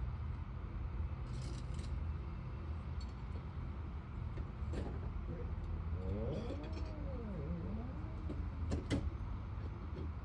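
Steady low engine rumble running throughout, with a few light metallic clinks of steel tools or rebar, the loudest about one and a half seconds in and near the end. No jackhammering is heard.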